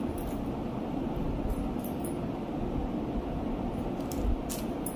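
Light plastic clicks and taps as a phone is pressed into the spring clamp of a small mobile tripod, over a steady low hum.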